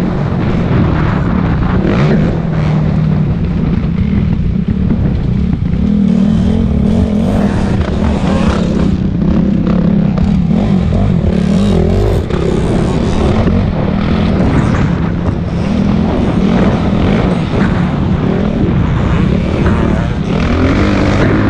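Motocross bike's engine heard from on board under hard race riding, its revs rising and falling continuously through throttle changes and shifts.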